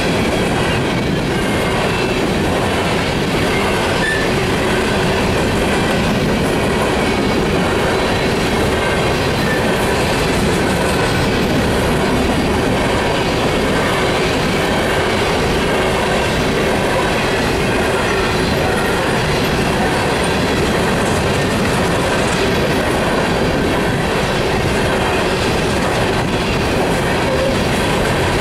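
Empty steel coal hopper cars rolling past close by: the steady rumble of wheels on rail.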